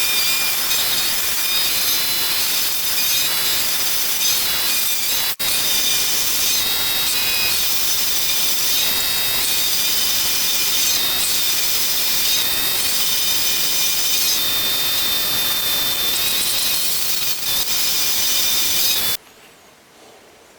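Milling machine cutting a 10 mm slot into a 32 mm square steel bar, a steady cutting noise with a high, wavering whine from the cut. It breaks off for an instant about five seconds in and stops abruptly near the end.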